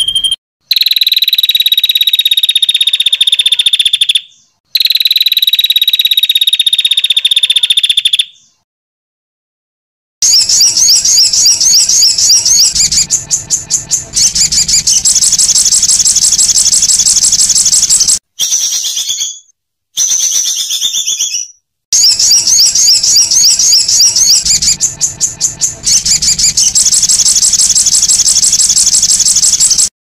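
Songbird song of the kind used as a 'masteran' training track, with rough, long phrases. First comes a high, steady trill that falls slowly in pitch, in two long stretches. After a pause of about two seconds comes a fast, high chattering trill of many notes a second, broken by a few short silences.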